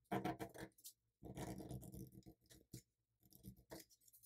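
Sheet of letter paper being folded and creased by hand: a short burst of rustling, then a longer stretch of paper sliding and scraping, and a few soft crinkles near the end.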